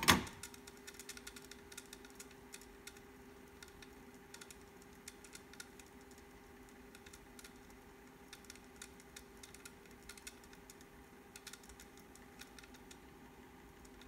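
Music cuts off with a click as a control on a vintage Onkyo stereo system is switched. Then only a faint steady hum with scattered light ticks.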